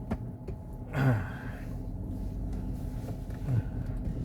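Steady low driveline hum inside the cabin of a moving GMC Denali. The humming persists after the differential was replaced, and the owner suspects the transmission or transfer case rather than the differential. A person gives a short falling 'hmm' about a second in and again about three and a half seconds in.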